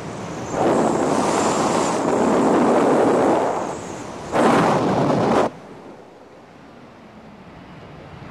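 Wind rushing over the microphone in loud gusts that start and stop abruptly. The loudest gust is about four and a half seconds in, and it cuts off suddenly to a much quieter hiss.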